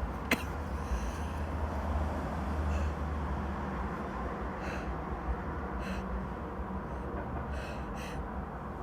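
A woman's faint sniffs and breaths as a sneeze builds up, over a steady low background rumble.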